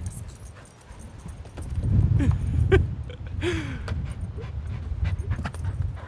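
A dog whining briefly a few times while being coaxed, over a steady low rumbling noise that is loudest about two seconds in.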